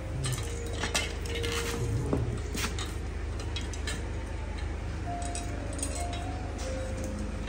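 Metal parts of a clothes rack clinking and knocking together as it is assembled, in irregular sharp clicks.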